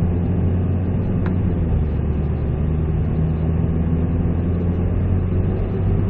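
Peugeot 207 CC engine and road noise heard from inside the cabin while cruising: a steady low engine hum over tyre noise, with a faint tick about a second in.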